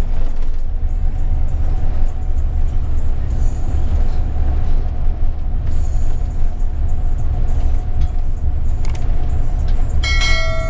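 Steady low drone of a Yutong-chassis coach under way, engine and tyre noise heard from inside the driver's cab. A short electronic chime rings near the end.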